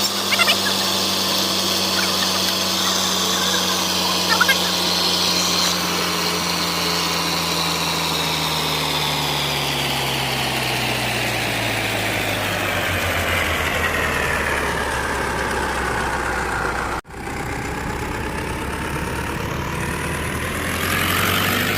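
A vehicle engine running steadily, its pitch falling slowly over about twelve seconds and then holding level. The sound breaks off for an instant about 17 seconds in.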